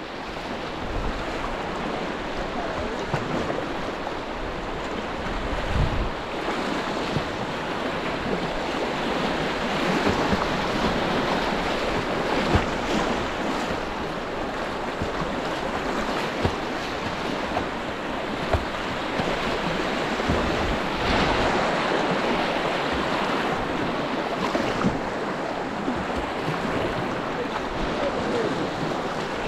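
White-water river rapids rushing and splashing around a kayak, with paddle strokes in the water and wind buffeting the microphone in low thumps.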